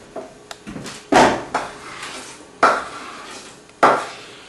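Chef's knife scraping diced tomato off a wooden cutting board into a metal stockpot, with three sharp knocks of blade and board, roughly a second and a half apart.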